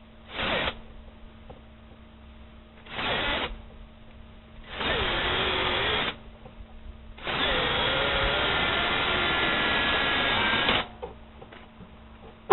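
Cordless drill boring out spot welds in a steel ammo box, run in four bursts: a brief one, a short one, one of about a second and a half whose pitch sags as the bit bites, and a long steady run of about three and a half seconds near the end.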